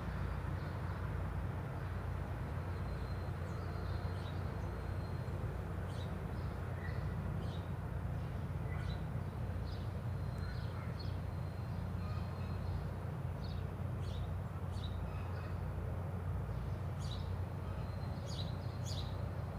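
Steady low background rumble of outdoor noise, with small birds chirping now and then.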